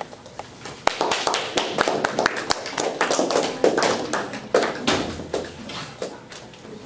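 A small group clapping, starting about a second in and dying away near the end.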